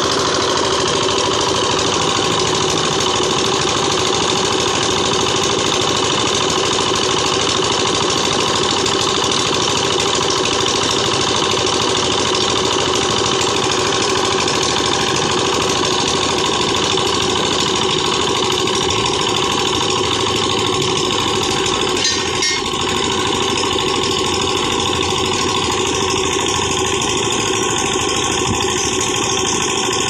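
An engine running steadily: a constant, even drone.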